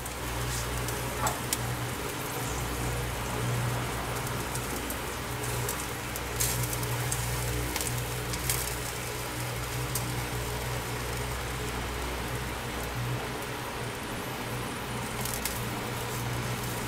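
Meat skewers sizzling on the grate of an electric grill, with a few light clicks of metal tongs against the grate as the skewers are turned. Under it a low rumble of wind on the microphone comes and goes.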